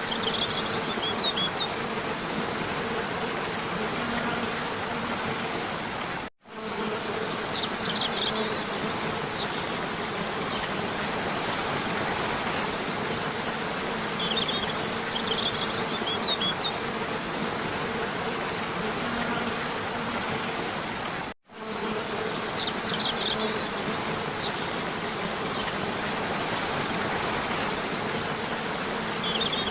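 Steady rushing noise like running water with a faint buzzing hum and short high chirps that recur; the sound cuts out suddenly twice, about 15 seconds apart.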